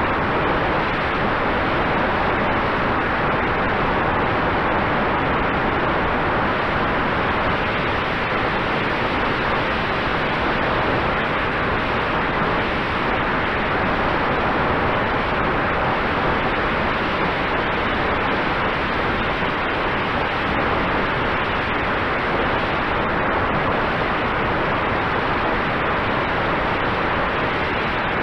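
Strong wind buffeting the microphone: a loud, steady, dense rush of noise, with a faint steady tone underneath.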